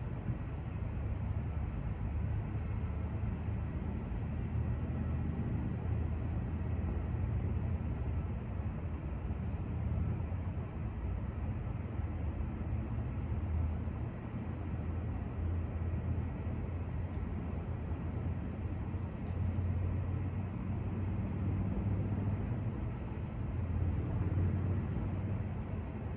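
Wind buffeting the microphone outdoors: a steady low rumble that flickers in strength, with no other clear event.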